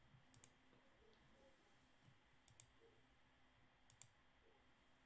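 Computer mouse button clicking: three faint pairs of sharp clicks, spaced about one and a half to two seconds apart.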